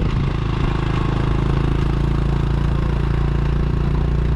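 Motorbike engine running at a steady speed, with a steady hiss over it.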